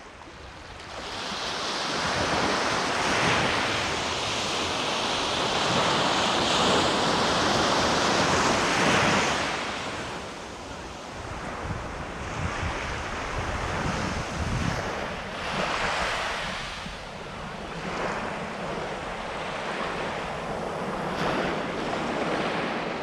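Small waves of the calm Black Sea washing onto a sandy beach, a steady surf hiss that swells and eases in gentle surges, with wind buffeting the microphone.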